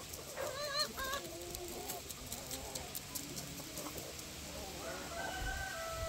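Free-range chickens calling and clucking, with a loud wavering call about half a second in and a drawn-out, steady call near the end.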